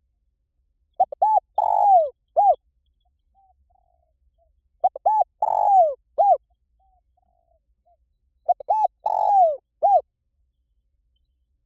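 Spotted dove cooing as a decoy call, in three matching phrases about three and a half seconds apart. Each phrase is two quick coos, a long falling coo, then one short closing coo.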